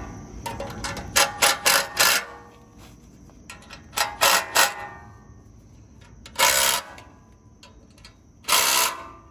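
Metal-on-metal squeaks and scrapes in quick clusters as a seized fan blade hub is twisted and worked on the shaft of a dead condenser fan motor. Four short bursts come about a second in and three more about four seconds in, then two longer grinding bursts near the end.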